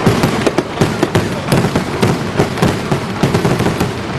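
Fireworks and firecrackers going off in a dense barrage: rapid, overlapping sharp bangs and crackles, several a second without a break.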